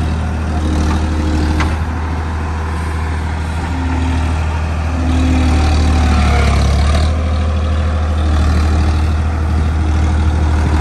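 Swaraj 963 FE tractor's diesel engine running under load while its backhoe loader digs mud and loads a trolley, getting louder about halfway through.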